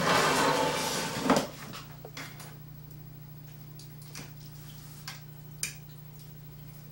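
A spoon scooping in a glass bowl of stir-fry and rice, with a few light clinks against the glass, over a steady low hum. A loud rustling noise fills the first second and a half.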